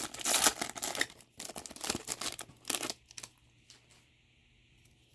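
Trading-card pack wrapper being torn open and crinkled by hand, a quick run of tearing and rustling that stops about three seconds in.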